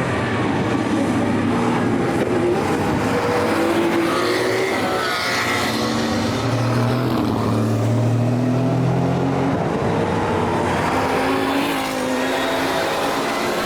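Race cars passing at speed, several engine notes overlapping and rising and falling as they go through the corners, with one pass loudest about five seconds in.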